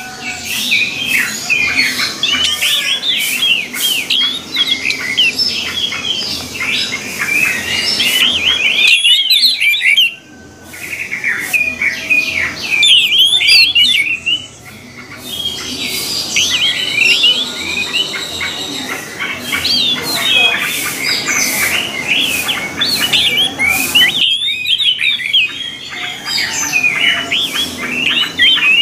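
Orange-headed thrush song: a rapid, varied, nearly continuous warbling of quick high notes and twitters, broken by short pauses about nine seconds in and again near twenty-four seconds.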